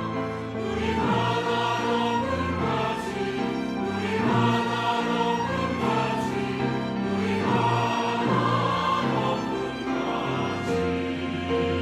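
Church choir singing a sacred anthem in full harmony, with held chords changing every second or so over steady low bass notes.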